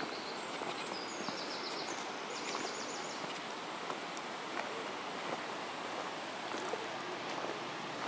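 Steady rushing hiss of a forest stream, with a small bird trilling twice in the first three seconds and a few soft footsteps on the gravel path.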